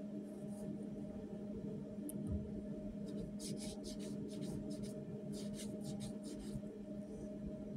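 Clusters of quick clicks, mostly between about three and six and a half seconds in, from a CNC router's handheld hand wheel being turned notch by notch to lower the tool tip. A steady low electrical hum from the machine runs underneath.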